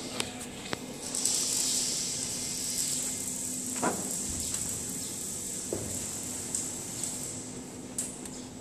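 RS256B rice color sorter running empty, a steady high hiss over a low hum, with a few light clicks near the start and a thump about four seconds in.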